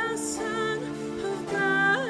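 Children's choir singing over music, holding long notes.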